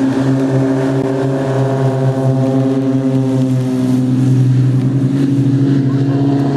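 Several Extra aerobatic propeller planes running their piston engines at take-off power as a formation rolls down the runway, a loud, steady propeller drone whose pitch shifts slightly midway.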